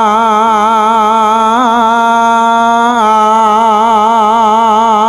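Male voice singing a slow Javanese langgam, holding long notes with a wide, even vibrato and moving to a new note about three seconds in.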